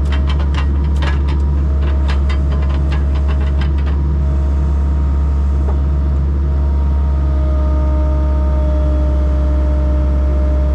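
Excavator diesel engine running steadily. A quick run of sharp clicks sounds over the first few seconds, and a steady whine comes in about seven seconds in.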